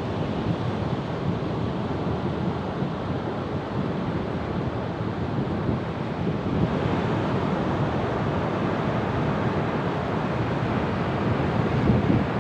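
Ocean surf washing steadily, with wind rumbling on the microphone. The wash grows a little brighter and louder about halfway through.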